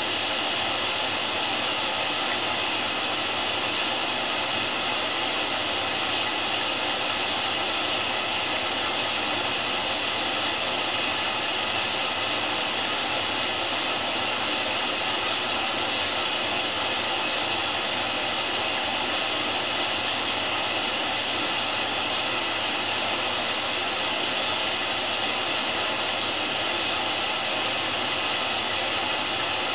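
Candy GrandO Plus washing machine running its wool wash programme: a steady, even hiss with no rhythm or breaks.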